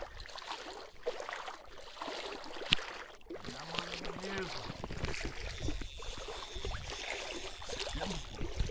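Someone wading through shallow river water, with splashing and sloshing steps and knocks from handling a phone. There is a sharp knock a little under three seconds in, and a brief voice sound around four seconds in.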